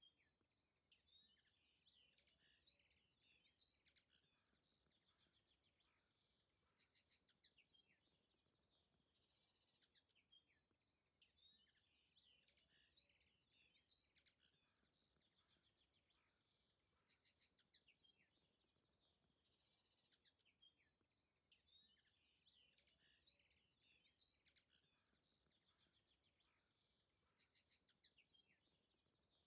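Very faint songbird chirps and twitters, a short stretch of birdsong that repeats about every ten seconds.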